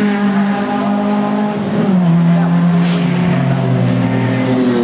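Sports saloon race car engine running hard, its note dropping in two distinct steps, about two and three seconds in.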